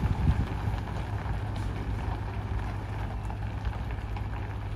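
Road train of side-tipper trailers rolling past at low speed: a steady low rumble from the tyres and the distant prime mover's engine.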